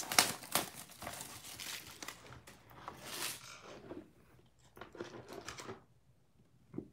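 Cellophane wrapper crinkling and tearing as it is pulled off a cardboard trading-card box, with light handling taps on the box. The crinkling dies away about four seconds in, leaving a few faint taps.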